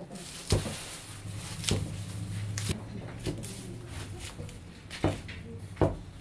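Chinese cleaver chopping green onions on a thick round wooden chopping block: sharp knocks at irregular intervals, about one a second, the loudest about half a second in and near the end.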